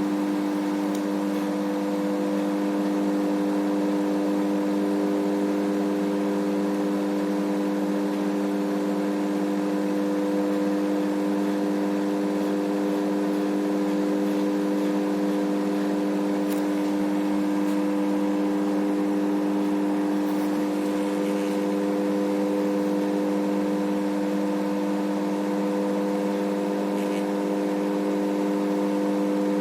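Microwave oven running a heating cycle with its newly replaced high-voltage diode, giving a steady, even hum that does not change.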